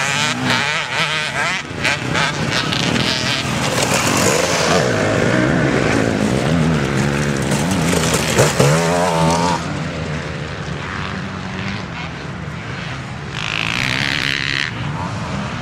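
Off-road enduro motorcycles racing, their engines revving up and down with a buzzy, rising and falling pitch. One bike passes close, loudest around eight to nine seconds in, then the engines fade to a more distant running sound.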